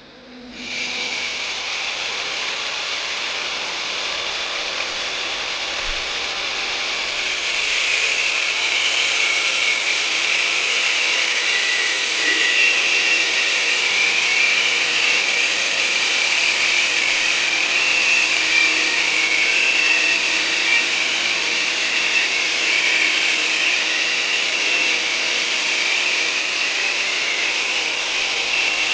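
A workshop power tool or machine starts up and runs steadily with a high whirring hiss. It gets a little louder about seven seconds in and keeps going.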